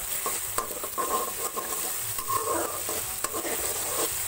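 Chopped onions frying and sizzling in oil in a metal kadai, with a spatula stirring and scraping against the pan in short irregular strokes, the onions being browned.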